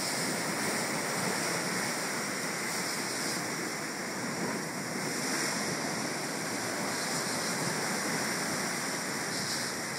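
Steady wash of ocean swell and surf against coastal rocks, an even rushing hiss without distinct crashes.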